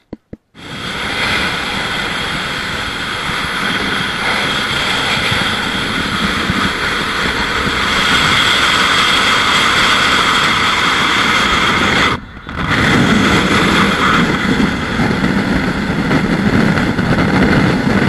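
Wind and road noise from a car travelling at highway speed, with wind rushing over the microphone. It cuts out for a moment about twelve seconds in and comes back with a heavier low rumble.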